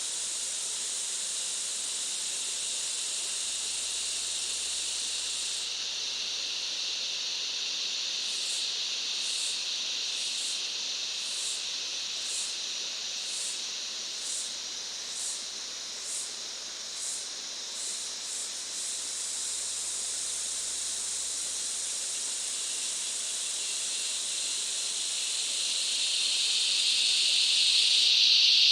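Rainforest insect chorus: a steady high-pitched buzzing drone. Through the middle a pulsing call repeats a little over once a second, and near the end a louder, lower buzz swells up.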